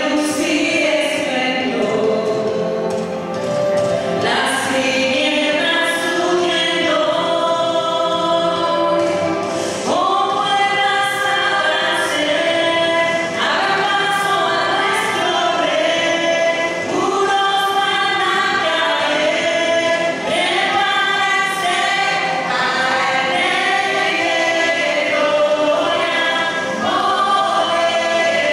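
Three women singing a Spanish-language Christian worship song together into microphones, with music accompanying them.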